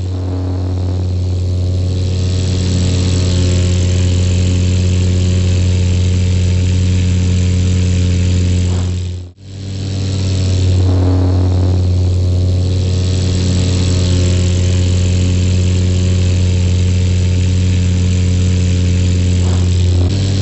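An engine drones steadily at an even pitch, with a brief sharp break about nine seconds in before it carries on unchanged.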